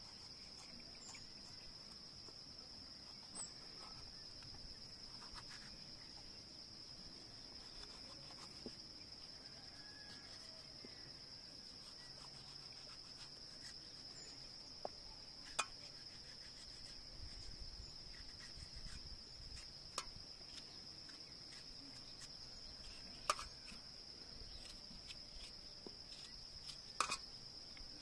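Steady high-pitched insect chorus, cricket-like, with a few sharp clicks and knocks scattered through, the loudest near the end.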